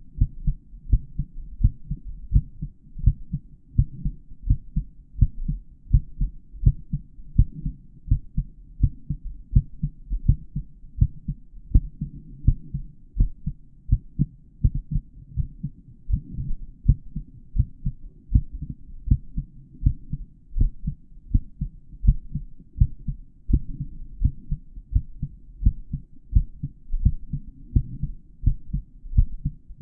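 Adult male heartbeat heard through a stethoscope: a steady, regular train of dull, muffled low beats with nothing above the low range.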